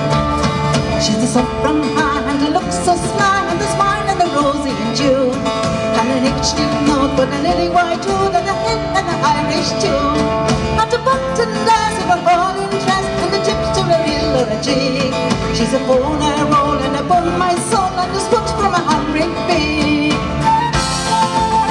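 Live Celtic folk band playing an Irish-style tune through a PA, with fiddle and strummed acoustic guitars.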